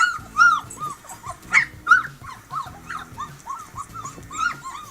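Husky puppies crying from a played-back video: a rapid string of short, high, arching whimpers and yips, several a second, with music underneath.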